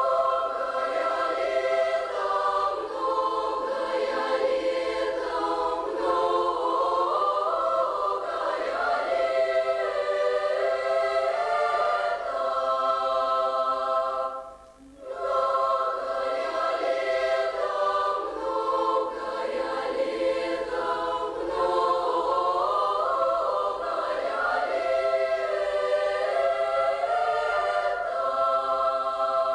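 Children's choir singing unaccompanied, in two long phrases with a short pause about halfway through.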